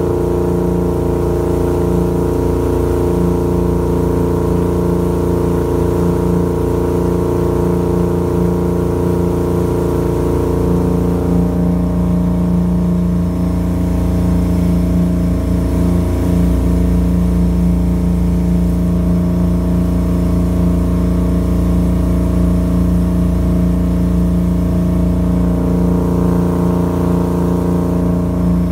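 A boat's engine running steadily under way, a constant pitched drone over a low rumble, with a slight shift in its note about eleven seconds in.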